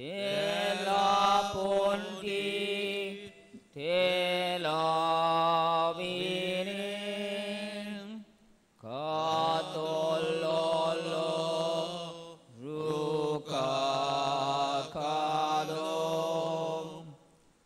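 A slow devotional hymn sung in Konkani, in four long phrases with short breaks between them, over a sustained low accompanying note.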